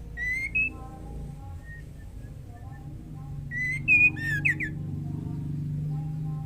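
White-rumped shama, billed as a female in breeding condition calling for a male. It gives a short rising whistle right at the start, then a louder phrase of whistled slurs and quick falling notes about three and a half seconds in. Softer, lower warbled notes and a steady low hum run underneath.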